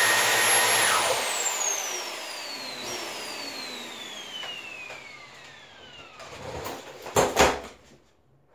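Hoover Air Lite vacuum cleaner running, then switched off about a second in: its motor whine slides down in pitch as it winds down over several seconds. A brief loud bump near the end is the loudest moment.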